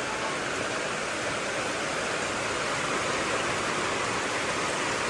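Heavy rain and running rainwater making a steady, even rushing hiss.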